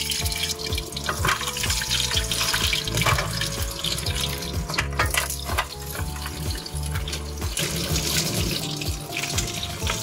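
Frozen vegetable dumplings sizzling and crackling in hot oil in a frying pan, with scattered sharper pops and spits.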